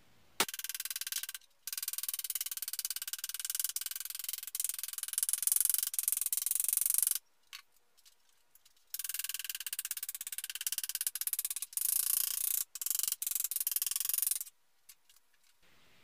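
Hammer tapping a sheet-metal flange over wooden boards clamped in a vise to fold it, a rapid, high, chattering run of taps in three long stretches with short breaks.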